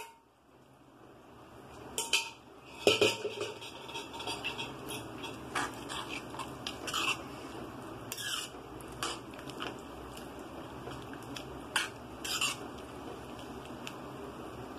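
Steel spoon stirring a watery bean curry in an aluminium kadai, clinking and scraping against the pan a dozen or so times at irregular intervals, over a steady low hiss.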